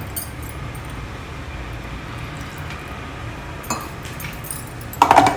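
Light kitchen clinks over a steady low background hum, with a short click more than halfway through and a sharper knock near the end.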